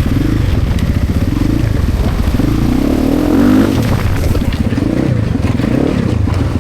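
Motorcycle engine running under load, its revs rising and falling several times: about a second in, in the middle, and again near the end.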